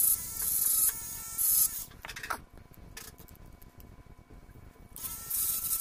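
Mini rotary tool with a sanding drum grinding a hardened superglue-and-baking-soda patch on an action camera's plastic housing: a steady motor whine under a rasping hiss in short strokes. The sanding stops about two seconds in, and the whine and hiss come back near the end.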